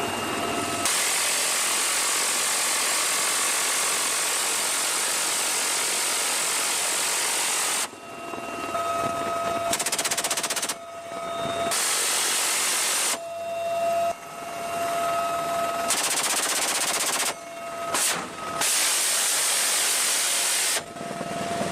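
Helicopter-mounted rapid-fire door guns firing long continuous bursts: a first burst of about seven seconds, then about five shorter ones. Between the bursts a steady high whine from the UH-1Y Venom helicopter can be heard.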